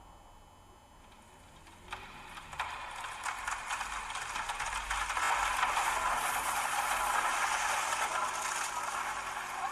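A dense rattling, clattering sound, many quick ticks together, that starts about two seconds in and grows louder.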